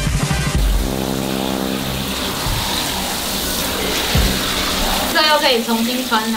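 Water spraying steadily from a handheld shower head onto a soaked black garment on a tiled floor, rinsing it out.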